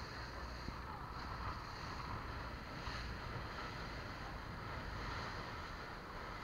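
Motorboat under way: a steady low engine rumble with wind noise on the microphone.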